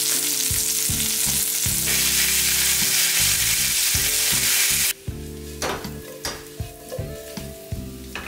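T-bone steak sizzling in a hot cast-iron pan, a loud, dense, steady hiss. About five seconds in it cuts off abruptly, giving way to roasting herb potatoes frying with a quieter sizzle and scattered crackling pops. Soft background music plays underneath.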